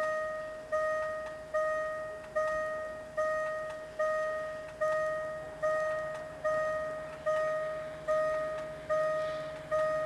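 Railway level-crossing warning bell ringing, one clear stroke a little more than once a second, each dying away before the next. A faint low hum of the approaching train grows in the second half.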